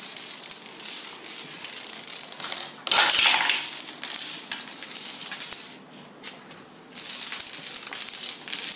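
A long chain of small plastic dominoes toppling one after another on a marble floor: a fast, continuous clatter of clicks, loudest from about three to six seconds in, easing off for a moment about six seconds in before picking up again.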